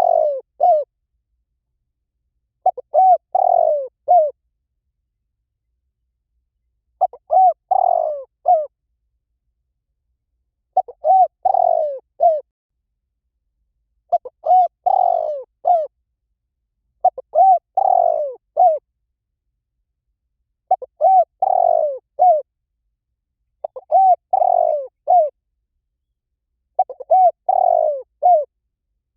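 Spotted dove cooing: the same short phrase of a few quick coos ending in a lower, longer note, repeated about every three to four seconds, with dead silence between phrases.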